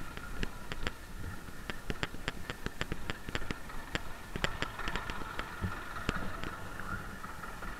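Harvest machinery running with a steady drone and many irregular sharp clicks and rattles, a few each second.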